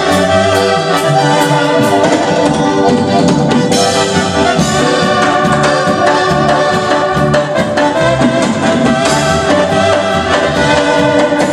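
Tierra caliente band playing an instrumental passage without vocals: a held, reedy lead melody over a steady, pulsing bass beat.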